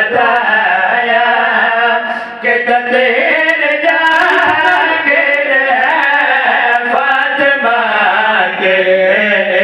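A man loudly chanting a qasida, a devotional Urdu-Punjabi poem in praise of the Ahl al-Bayt, in a sustained melodic voice through a microphone, without instruments.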